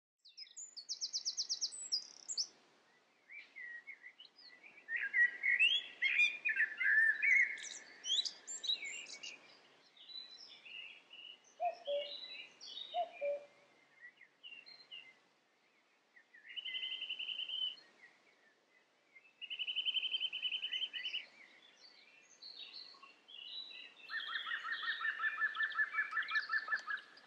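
Birds singing in separate phrases, one after another: a fast high trill at the start, busy warbling a few seconds in, two short low notes near the middle, and a long fast trill near the end.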